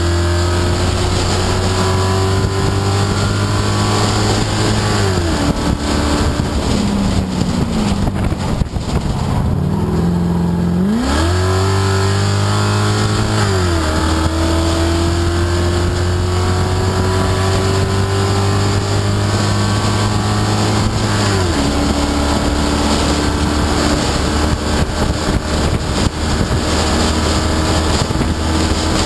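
Race car engine at full throttle, heard from the roofless cockpit: revs climb steadily, fall away from about five seconds in as the car slows for a corner, then climb hard again from about eleven seconds in, with a short drop in pitch at each upshift, about fourteen and twenty-one seconds in. Wind rushes through the open roof the whole time.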